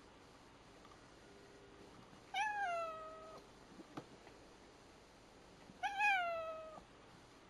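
A cat meowing twice, a few seconds apart. Each meow lasts about a second, starting higher and falling in pitch before it levels off.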